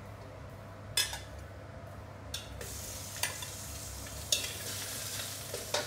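Slices of Cantonese roast pork belly (siu yuk) going one after another into a hot wok to reheat, sizzling, with about five sharp clinks of a metal utensil against the wok. The sizzle grows from about halfway in as more meat goes in.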